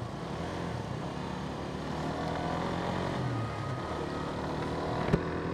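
Steady engine and road noise of a vehicle under way, with one sharp click about five seconds in.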